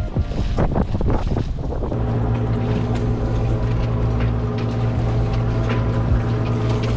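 Motorboat engine running at a steady pitch, with wind on the microphone; a few irregular knocks come before the engine sound settles, about two seconds in.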